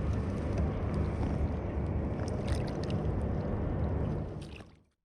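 Water gurgling and lapping against a kayak, under a low rumble, with a few small clicks or drips. It fades out shortly before the end.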